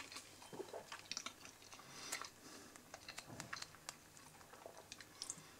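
A person quietly chewing a mouthful of burger, with many faint, short mouth clicks.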